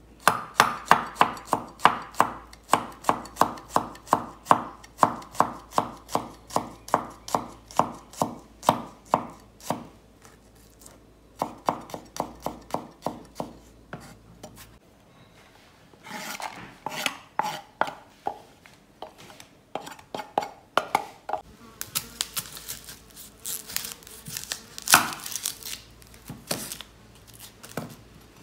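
Kitchen knife chopping garlic on a wooden cutting board: a quick, even run of knocks, about three a second, with two short pauses. In the second half come rougher scraping sounds from the blade on the board, then scattered chops into a red onion, one of them loud.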